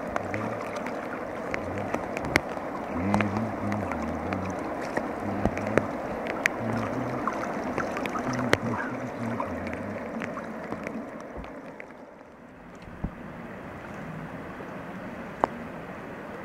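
Fast-flowing river water rushing, with scattered sharp ticks over it. Low notes of background music sound under it and fade out about two-thirds of the way through, leaving the river noise alone and quieter.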